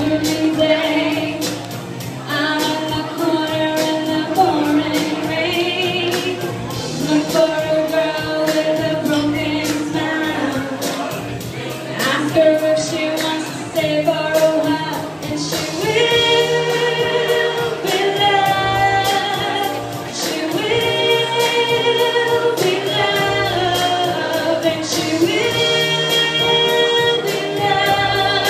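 A woman singing live with music behind her, her voice moving through a melody and holding several long, steady notes in the second half.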